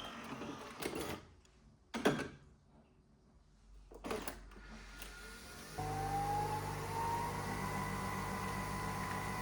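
A few soft knocks and rustles of handling, then a small electric motor switches on about six seconds in. Its whine rises briefly and then holds steady over a low hum.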